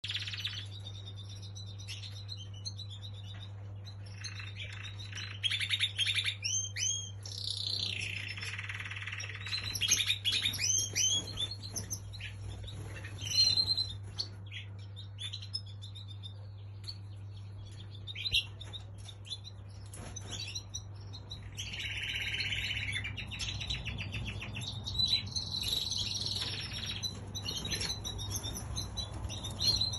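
Small cage birds chirping and twittering in quick, high bursts, several calling at once at times, over a steady low hum.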